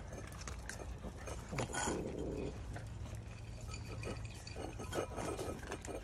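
Miniature Schnauzer puppies eating dry kibble from bowls, with a busy patter of crunching and clicks of teeth on food and bowls.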